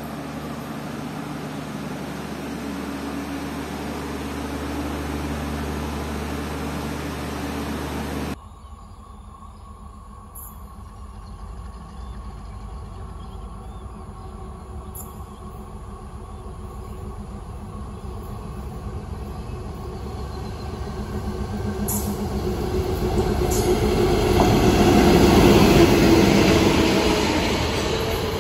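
A steady mechanical hum with low droning tones for the first eight seconds or so, cut off suddenly. Then a Class M4 diesel-electric locomotive and train approach, growing steadily louder until the locomotive passes about 25 seconds in, followed by the rumble of coaches running by on the track.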